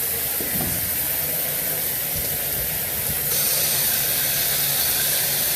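Water running steadily from a tap as a hissing flow. About three seconds in, the hiss becomes louder and brighter.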